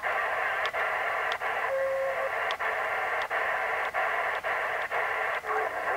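Retevis MB1 CB radio's speaker hissing AM static with no station coming through. The static breaks off for an instant about every two-thirds of a second as the channels are stepped down one at a time. A short steady whistle comes in about two seconds in.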